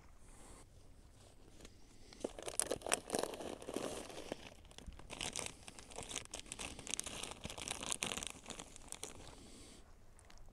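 Clear plastic bag of small baitfish crinkling and crackling as it is opened and handled, a busy run of rustles from about two seconds in until near the end.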